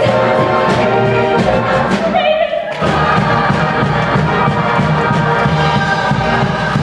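A musical number from a stage show: an orchestra with brass plays under massed singing voices. The sound thins briefly about two seconds in, then comes back full.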